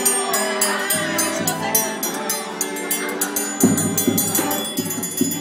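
Northeastern Brazilian forró-style band: sanfona (button or piano accordion) holding chords, a triangle struck in a quick steady rhythm and a zabumba bass drum. Voices singing along in the first half; the zabumba beats come in strongly about three and a half seconds in.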